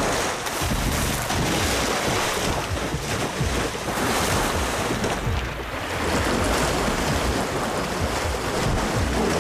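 Water splashing and churning continuously as bull hippopotamuses fight and charge through a river, the dominant bull driving off a younger male.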